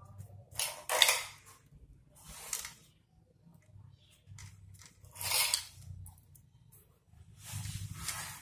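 The plastic control box of a Tianhong sewing-machine servo motor being handled and fitted against its aluminium mounting bracket: four short scraping, clattering noises, the loudest about a second in.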